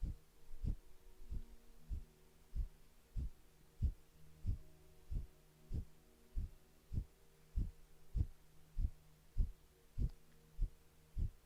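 Rapid forceful nasal exhales of Kapalabhati breathing, one short puff about every 0.6 seconds, each landing as a low thump, over a steady faint hum.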